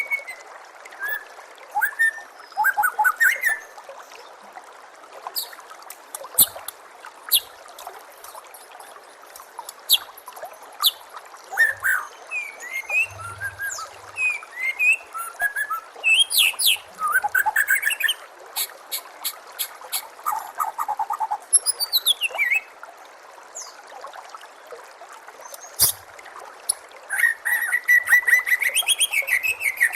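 White-rumped shama (murai batu) singing a varied string of sweeping whistles, quick trills and sharp high notes, over a steady background of babbling water.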